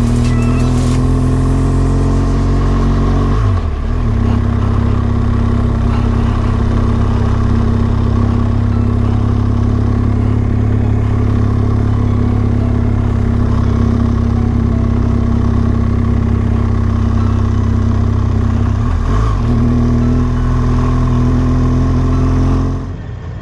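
BMW R1200GS boxer-twin engine running under load as the motorcycle climbs a rough track, steady and loud, with two brief breaks in the engine note, about three and a half seconds in and again some four seconds before the end.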